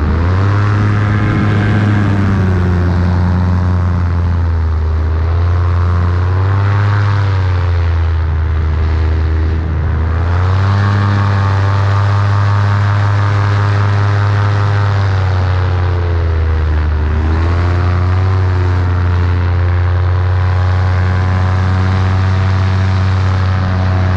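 Paramotor engine and propeller running in flight. The engine note dips and climbs back up a few times.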